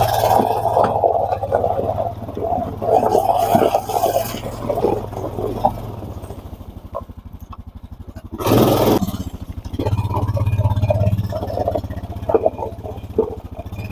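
A four-wheeler (ATV) engine running at low speed while maneuvering, with irregular clattering and scraping from the log and log arch, and a brief louder burst of noise a little past the middle.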